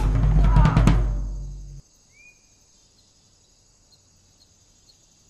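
Drum-heavy soundtrack music with sharp drum hits fades after about a second and cuts off just before two seconds in. It leaves faint steady high-pitched outdoor ambience, with one short rising chirp soon after the cut.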